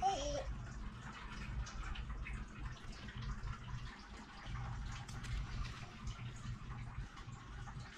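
Light, irregular rustling and crackling of shredded paper bedding and its plastic bag as a small child handles and scatters them, with a brief high vocal sound from the child at the very start.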